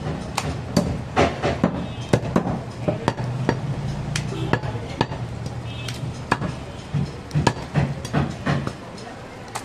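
Butcher's heavy knife chopping goat mutton and bone on a wooden log chopping block: repeated sharp knocks, irregular, about one to two a second.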